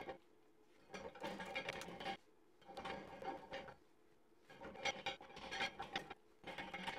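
Hand work on a Dana 25 axle housing at the carrier's oil-seal bore: four short bursts of metal scraping and clicking, each about a second long.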